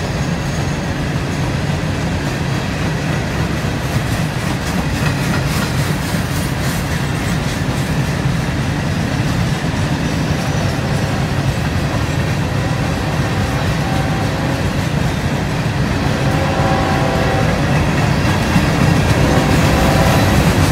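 A CSX freight train of open-top hopper cars rolling past at close range, with a steady low rumble and the clatter of steel wheels on the rails. A higher tone comes and goes a few times near the end.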